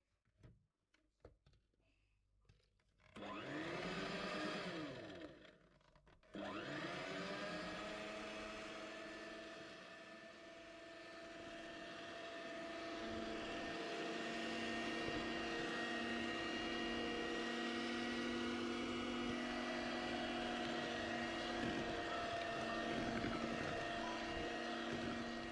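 Electric hand mixer beating cake batter. There are a few faint clicks, then the motor whines into life about three seconds in, cuts out briefly a couple of seconds later, starts again and runs steadily.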